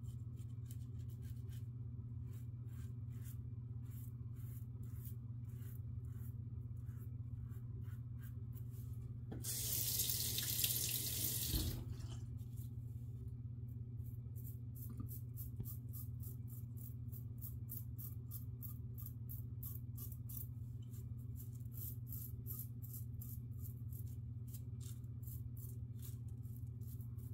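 Rex Ambassador adjustable safety razor with a Gillette 7 O'Clock Black blade scraping through lathered stubble in many short, repeated strokes. About nine and a half seconds in, a water tap runs for about two and a half seconds, the loudest sound here, then the strokes resume.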